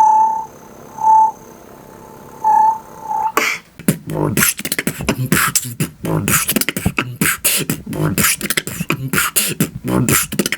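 Beatboxer's vocal sonar searching sound: four short pings at one steady pitch in the first three seconds, followed by a fast, dense beatbox beat of low thumps and hissy high hits.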